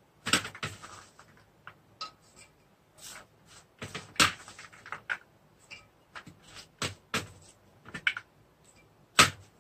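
Green peas dropped by hand into an aluminium pressure cooker pot holding rice: scattered, irregular light clicks and taps, the sharpest about four seconds in and again near the end.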